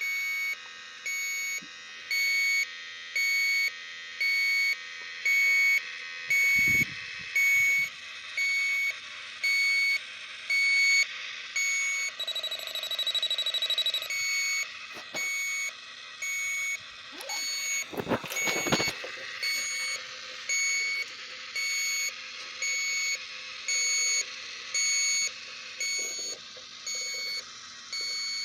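Electronic refrigerant leak detector beeping steadily, a high-pitched beep a little more than once a second, as its sniffer probe picks up refrigerant at a leak. A short steadier tone sounds near the middle, and a couple of knocks come about two-thirds of the way through.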